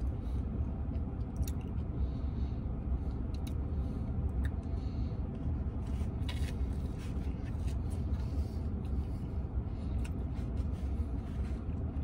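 A man chewing and biting into a grilled cheese sandwich, with a few faint short clicks, the clearest about six seconds in, over a steady low rumble inside a vehicle's cabin.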